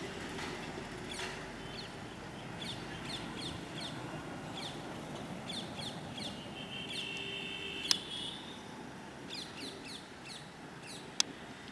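Rose-ringed (Indian ringneck) parakeets calling: runs of short, sharp, falling calls repeated throughout. Two sharp clicks come through, one about eight seconds in and one near the end.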